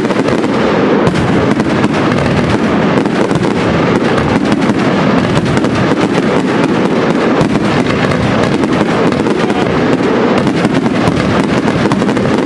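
Aerial firework shells of a professional display bursting in a dense, unbroken barrage, many sharp bangs following so closely that they run together into one continuous loud roll.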